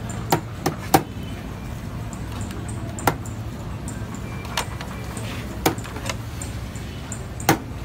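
Metal serving scoops clinking against a large metal tray and china plates as pulao rice is dished out: about eight sharp, separate clinks at irregular intervals over a steady low background hum.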